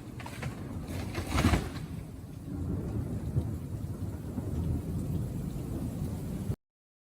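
Thunderstorm with rain: a loud thunderclap about a second and a half in, with low rumbling before and after it. The sound cuts off abruptly near the end.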